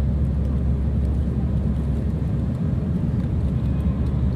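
Steady jet airliner cabin noise while climbing after takeoff: engine and airflow rumble heard from a window seat, heaviest in the low end and even throughout.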